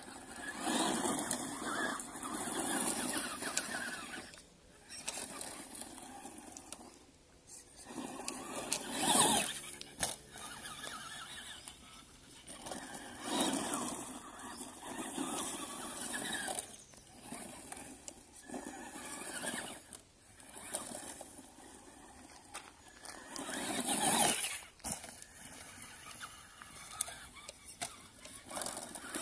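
Traxxas Rustler XL-5 RC truck's brushed electric motor whining in repeated bursts as it accelerates and brakes, with its tyres scrabbling over gravel and dirt. The loudest bursts come about nine seconds in and again near the end.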